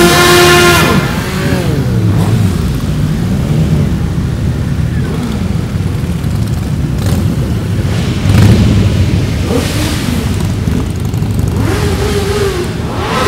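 A procession of motorcycles riding past one after another, their engines running in a continuous drone that rises and falls in pitch as each bike goes by. The loudest pass is at the very start, with another swell about eight and a half seconds in.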